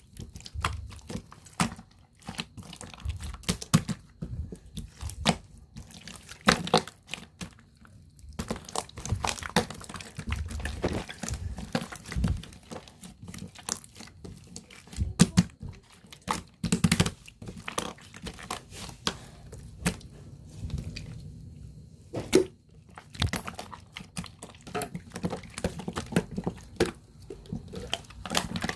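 Slime being squeezed, stretched and folded by hand, making irregular sticky pops, clicks and wet crackles throughout.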